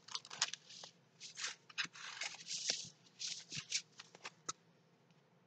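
Large diamond painting canvas rustling and crinkling as it is unfolded and handled, in a series of short crackly bursts that stop about four and a half seconds in.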